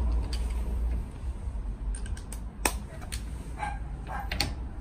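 Scattered light clicks and knocks of hand tools being handled as an impact driver's socket is fitted onto a car's lug nut. A low rumble fills the first second or so.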